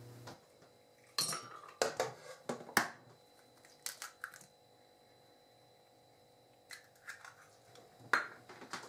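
An egg knocked against the rim of a plastic mixing bowl and its shell cracked open: a handful of short sharp knocks and cracks in the first few seconds, then a few fainter clicks near the end.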